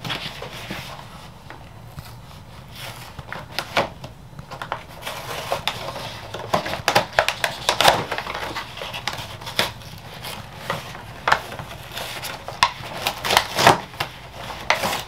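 Clear plastic blister packaging crinkling and crackling as it is handled, with irregular sharp clicks that come thicker in the second half.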